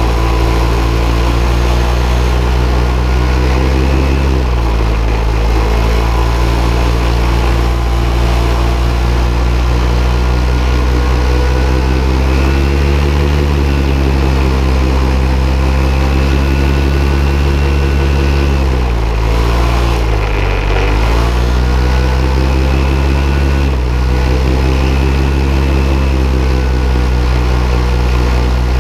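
Paramotor engine running loud and close behind the pilot in flight. Its pitch drops as the throttle comes back about four seconds in and rises again around twelve seconds in; it dips low and recovers around nineteen to twenty-one seconds, then steps up again near twenty-four seconds.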